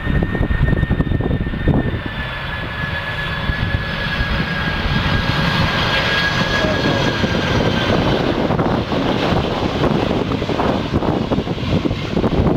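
Boeing 747 freighter's four turbofan engines on landing approach: a high whine that drops slightly in pitch, over a deep rumble, with wind buffeting the microphone.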